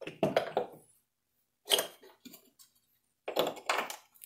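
Metal clinks and clanks of an engine motor mount and its bolts knocking against the bracket as the mount is set in place by hand, in three short bursts.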